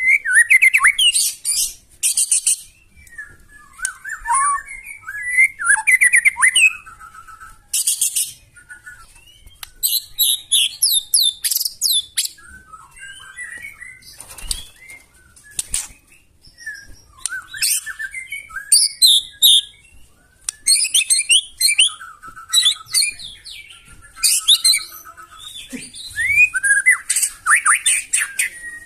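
White-rumped shama singing a long, varied song: rapid sweeping whistled phrases broken every few seconds by short, harsh rasping bursts, the rough 'shooting' delivery (nembak kasar) that keepers use to provoke other shamas into singing.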